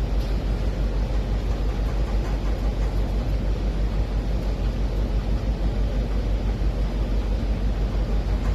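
Strong wind buffeting the microphone on the open deck of a container ship at sea: a loud, steady rush with a fast flutter and heavy low rumble.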